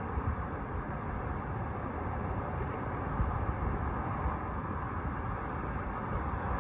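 Steady hum of a distant city heard from high ground, with uneven low rumbling from wind on the microphone.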